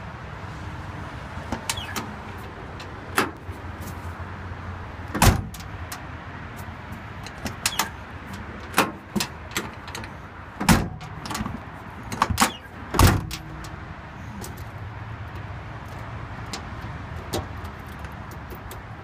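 Irregular knocks, clicks and scrapes at a pickup truck's door, the loudest about 5, 11 and 13 seconds in, over a steady low hum.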